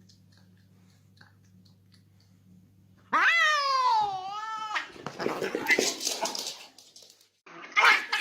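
A pet's long cry about three seconds in, falling in pitch and then wavering, followed by irregular scuffling and clattering noises. A faint steady hum lies under the quiet start.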